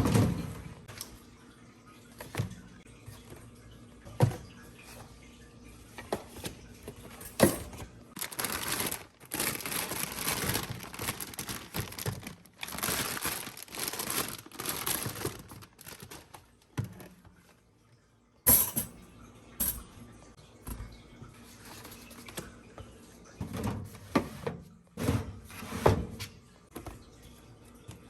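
Fruit and produce being handled and put away in a kitchen: scattered knocks and thuds of items and containers set down, with several seconds of rushing noise midway.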